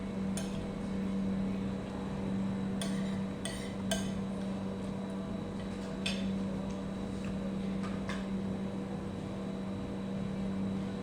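A few short clinks of utensils against dishes, about five scattered through, over a steady low electrical hum.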